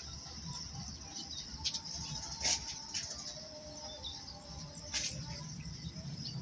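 Birds chirping in short, scattered calls, with a few faint longer calls, over a steady low outdoor rumble.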